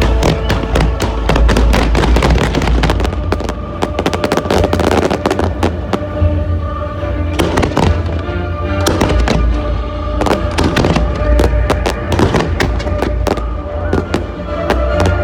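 Aerial fireworks going off in rapid succession: a dense run of bangs and crackles with a deep low rumble. Music plays alongside.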